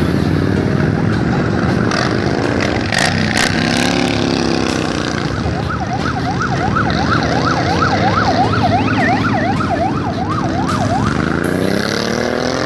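Motorcycles running past one after another. A siren warbles rapidly up and down from about six seconds in until about eleven seconds.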